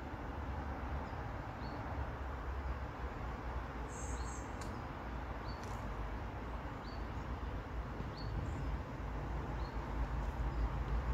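Outdoor ambience: a steady rushing hiss with a fluctuating low rumble, over which a small bird gives short high chirps about every second or so.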